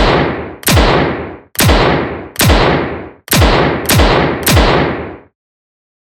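Revolver gunshots, fired one after another: about seven sharp shots, each followed by a short ringing tail, the last three coming faster, about half a second apart.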